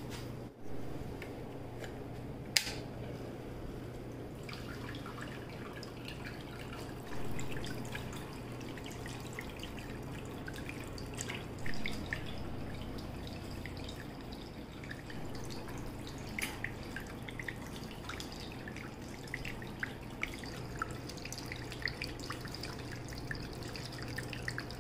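Small cement tabletop waterfall fountain running: water trickling and dripping steadily, with the low steady hum of its 9-watt mini water pump underneath.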